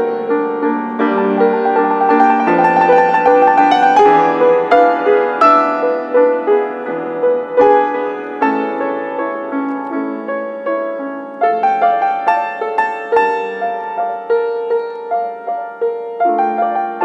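Grand piano played four hands: a melody of held notes over a steady accompaniment, with a new, louder phrase entering about two-thirds of the way through.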